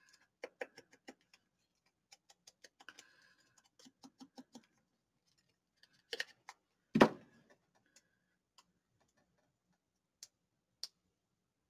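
Runs of light, rapid clicks, about five a second, from hands handling craft materials on a desk. About seven seconds in comes a single loud knock as a wooden-handled craft tool is set down on the desk, then two faint clicks near the end.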